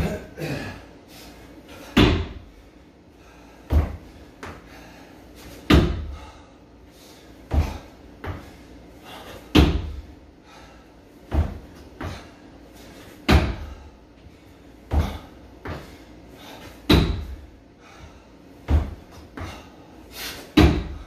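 Repeated box jumps onto a homemade wooden plyometric box: a heavy thud about every two seconds, with softer thumps between from the feet on the box and the floor.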